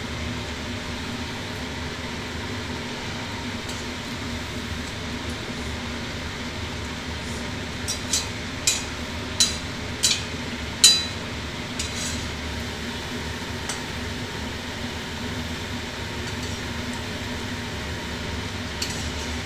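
Oil sizzling steadily in a metal wok as a flour pitha deep-fries, with a run of about six sharp metallic clinks of the metal spatula against the wok from about eight to eleven seconds in.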